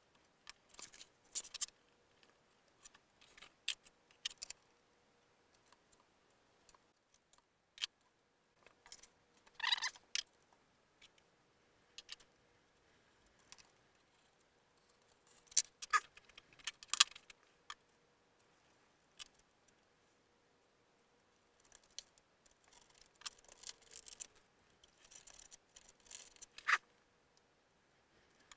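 Intermittent handling noise: a plastic camera mount clicking and sliding on a foam airframe, with several short scratching strokes of a hand tool on the foam.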